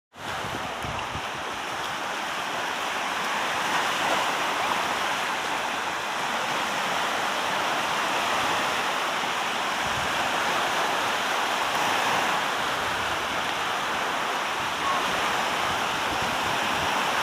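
Steady rush of sea water and surf, an even hiss with no rhythm or break.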